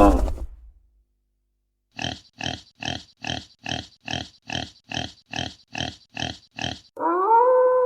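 Pig grunting sound effect: twelve short, evenly spaced grunts, a little over two a second. Near the end a long pitched call begins, gliding up and then holding steady.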